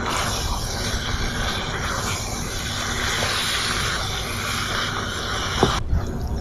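Macaroni and chicken in sauce sizzling with a steady hiss in a hot frying pan as a wooden spoon mixes it. The hiss cuts off abruptly near the end, followed by a couple of light knocks.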